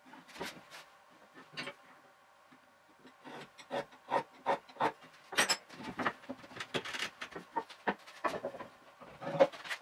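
A quick, irregular series of wooden knocks, taps and scrapes as boards and hand tools are handled, fitted and set down on a wooden workbench, played back sped up. It starts with a few knocks, grows into a busy run of taps, and ends with the sharpest knock.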